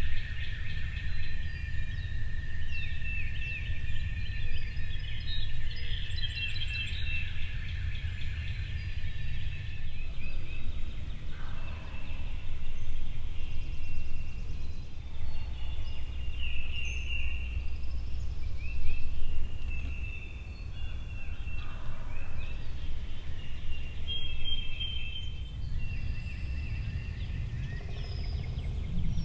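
Eastern wild turkeys gobbling several times, short rattling calls over a dawn chorus of songbirds, with a steady low rumble underneath.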